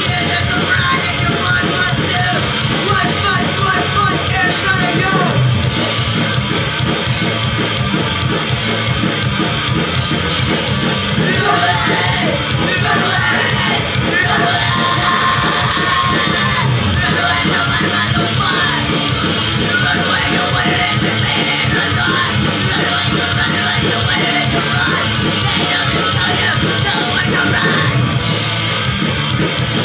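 Live punk rock band playing loud and without a break: distorted electric guitars, drum kit and yelled vocals.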